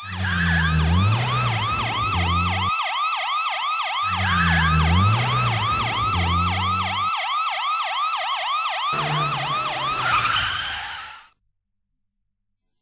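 Police car siren sound effect, a fast repeating sweeping wail of about three sweeps a second, with a car engine running underneath in stretches. It cuts off suddenly near the end.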